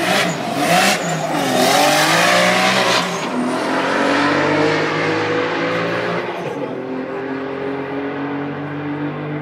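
Turbocharged E46 BMW M3's straight-six engine at full throttle from a drag-strip launch, its pitch climbing and dropping back at each upshift. It is loudest just after the launch and grows fainter as the car pulls away down the track.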